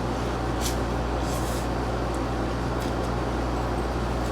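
Steady low machine hum of room equipment, with a few brief soft clicks of eating.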